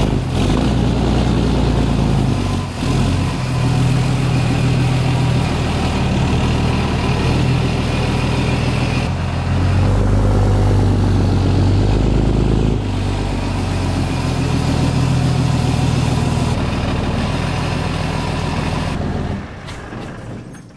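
Ram pickup's Cummins inline-six turbo-diesel running under load as it pulls and turns a gooseneck enclosed trailer. The engine note steps up and down with the throttle several times, then drops away near the end.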